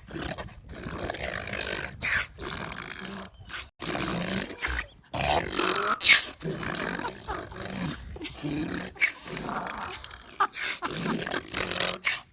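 Dog growling and grumbling in rough, irregular bursts while playing excitedly with a new ball, sounding like a dinosaur.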